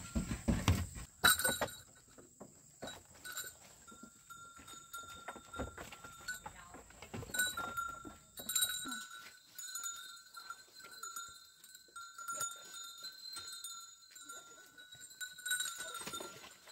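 Goats bleating now and then, with a steady high-pitched drone in the background.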